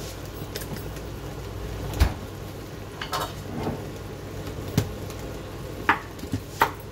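Scattered knocks and clinks of kitchen utensils and cookware, with a loud thump about two seconds in and a few sharper clicks later, over a steady low hum.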